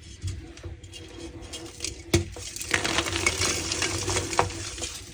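Reformed block of gym chalk being crushed by hand: scattered light clicks, a sharp crack about two seconds in, then a dense run of crunching and crumbling.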